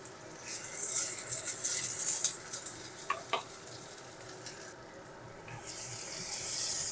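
Thin strips of potato and eggplant frying in hot mustard oil in a kadai: a sizzle that starts loud about half a second in, then eases off. Two light clicks come a little after the middle, the sizzle drops away briefly, then comes back near the end.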